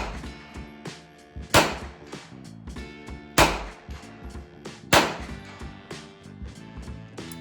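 Three gunshots from a 9mm Hi-Point carbine firing supersonic rounds, spaced about a second and a half apart, over background music.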